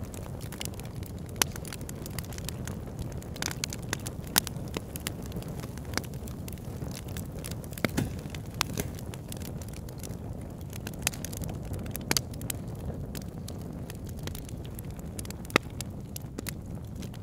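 Wood campfire burning: a steady low rustle of flames with irregular crackles and sharp pops from the burning logs, a handful of them standing out louder.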